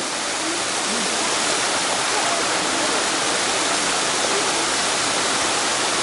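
Steady rushing water from a waterfall pouring into a pool and a stream running over the rocks below it.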